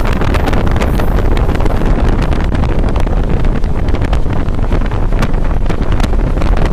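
Passenger train running at speed, heard from inside a coach: a steady rumble and rushing air, with wind buffeting the microphone and scattered sharp clicks from the wheels and track.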